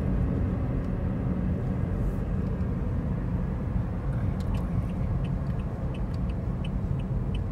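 Steady road and engine noise heard inside a moving car's cabin, mostly a low rumble. A run of faint, light ticks comes in about halfway through.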